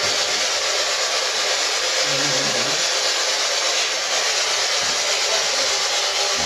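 Spirit box (PSB11) sweeping radio stations, giving out steady loud static, with a brief faint voice-like fragment about two seconds in.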